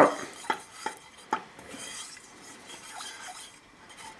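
Silicone spatula stirring liquid sauce in a stainless steel saucepan, scraping along the bottom with several light knocks against the pan.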